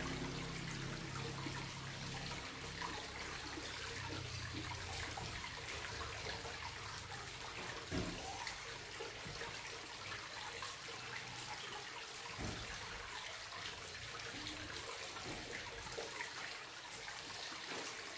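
Steady hiss of running water in the background, with quiet sounds of a person eating rice by hand and two soft knocks, about eight and about twelve seconds in.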